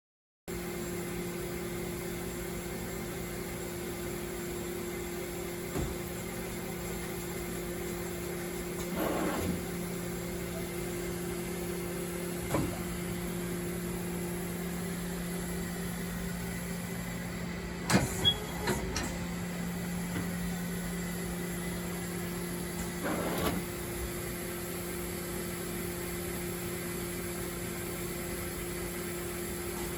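Mori Seiki NT1000 CNC multitasking lathe powered up and humming steadily, with a few scattered clicks and knocks; the loudest pair comes about 18 seconds in.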